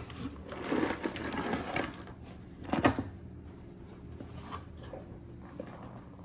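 Small pieces of costume jewelry (earrings, beads, glass stones) clattering as a box is tipped out onto a surface, with one louder clack about three seconds in and a few small clicks after as the pieces settle and are moved.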